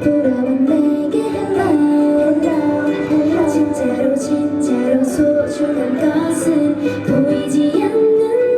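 A K-pop song performed through loudspeakers: a female voice singing a melody over the backing music.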